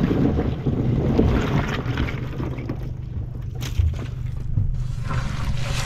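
Small fishing boat's engine running with a steady low hum, with wind noise on the microphone. A few brief clicks a little after the middle come from ice cubes and anchovies being stirred by hand in the fish box.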